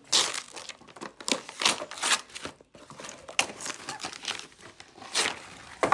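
Paper wrapping being torn and crinkled by hand as a gift box is unwrapped, in irregular bursts.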